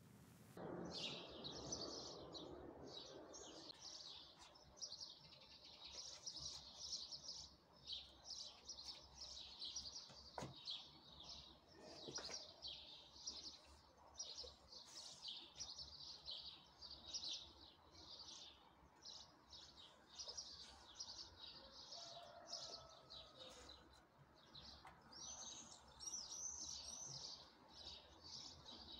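Small birds chirping continuously, many rapid, overlapping high chirps, with a couple of faint knocks near the middle.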